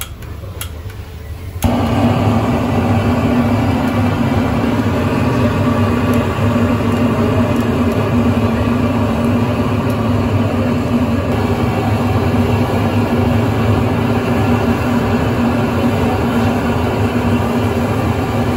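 A loud, steady machine hum at one fixed pitch switches on abruptly about a second and a half in, over a quieter background.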